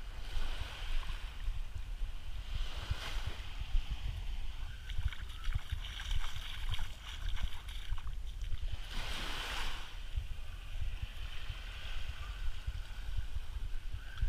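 Small waves lapping and washing up onto a sandy shore, hissing louder about three seconds in and again about nine seconds in, over a steady rumble of wind buffeting the microphone.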